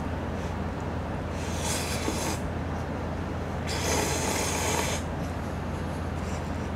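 Noodles slurped in two long breathy pulls of about a second each, the second louder, with the bowl held up to the mouth.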